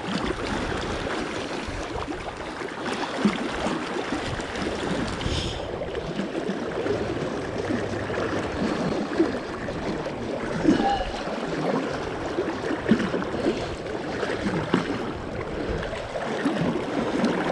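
Steady rush of a fast-flowing river's current over a rocky bed, close to the microphone.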